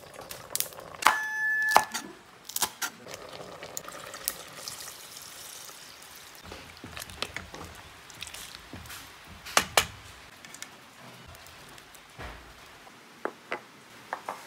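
Kitchen sounds of soup being cooked and served: scattered knocks and clinks of utensils and dishes, with some liquid sloshing. A short, steady high tone sounds about a second in, the loudest moment.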